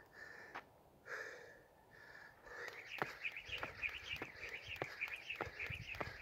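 Hard breathing between rounds of rope skipping, two gasping breaths in the first second and a half, over birds chirping steadily in the background. Sharp clicks of a skipping rope slapping the dirt start up about three seconds in.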